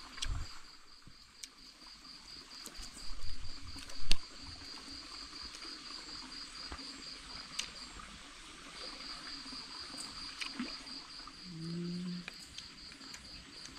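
An insect trilling in a steady, fast-pulsed, high-pitched rhythm, breaking off for about a second some eight seconds in. A few scattered clicks and one sharp knock, about four seconds in, sound over it.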